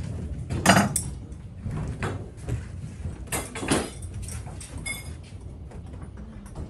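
Workshop handling noises as plumbers work on the pipework under a washbasin: several sharp knocks and clatters of tools and fittings, the loudest under a second in, and a brief high squeak about five seconds in.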